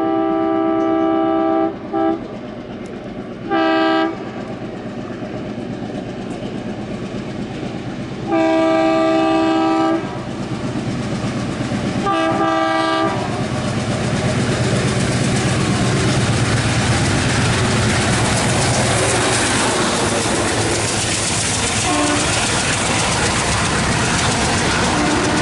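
Twin WDG3A ALCO diesel locomotives sounding their horn in five blasts, two of them long, over the first half; then the engines chug hard and the freight wagons clatter past, getting louder as the train draws close.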